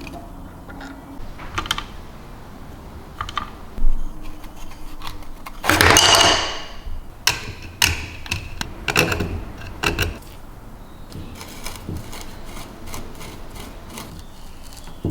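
Small hard parts clicking and rattling as they are handled, with a louder scraping rattle about six seconds in and a run of sharp clicks after it.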